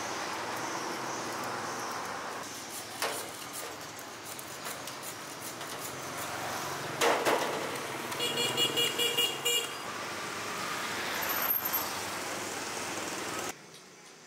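Outdoor traffic ambience with a steady background noise, and a vehicle horn tooting about six times in quick succession about eight seconds in. The ambience cuts off abruptly near the end.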